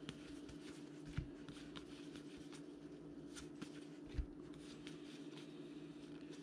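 Baseball trading cards being handled and flipped through: faint rustling and soft clicks, with two soft thumps, over a steady low hum.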